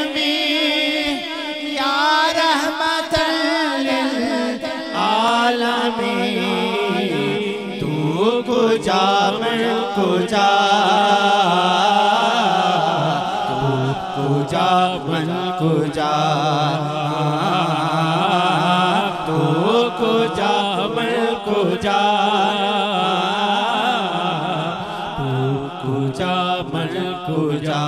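Male naat singer holding long, wavering melismatic notes without clear words, over a steady low drone.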